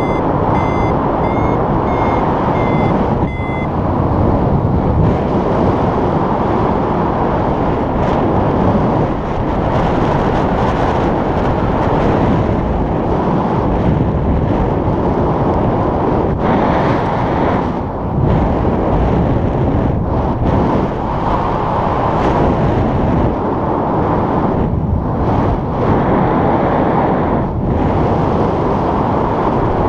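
Wind rushing over the camera microphone of a paraglider in flight, a steady rough roar. In the first few seconds a flight variometer beeps several short, high tones in quick succession, the climb signal of rising air.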